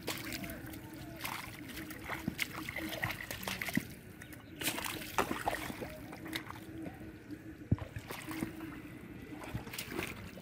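Hands and bare feet squelching and splashing in shallow mud and water as fish are dug out by hand: irregular wet slaps, sloshes and drips, with one sharper slap about three quarters of the way through. A faint steady hum runs underneath.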